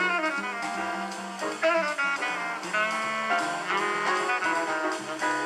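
Jazz playing on a radio, from KCSM's Jazz 91 station.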